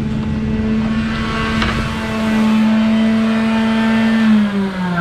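Electric power-tool motor running at a steady pitch, then switched off and winding down, its pitch falling near the end. A single click sounds partway through.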